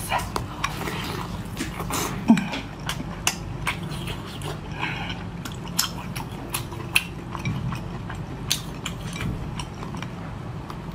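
Close-up eating sounds of a woman biting and chewing chili-oil-soaked spicy lobster meat: wet mouth smacks and irregular sharp clicks, with dripping oil.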